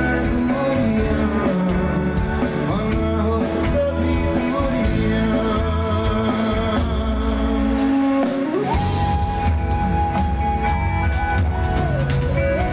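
Live rock band playing through the PA, heard from among the audience: a male singer over electric guitar, drum kit and heavy bass. About nine seconds in, a note slides up and is held.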